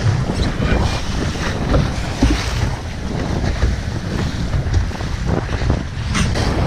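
Wind buffeting a body-mounted GoPro microphone over water rushing along the hull of a Lightning sailboat under way, a steady low rumble with a few faint knocks about six seconds in.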